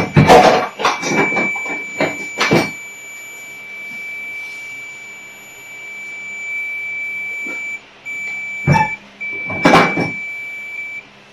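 Mastech M266 clamp meter's continuity buzzer giving a steady high-pitched beep while the test probes touch, the sign of a closed circuit. It breaks off briefly about eight seconds in, sounds again, and stops near the end. Clicks and knocks from the probes and meter being handled come in the first few seconds and again around nine to ten seconds.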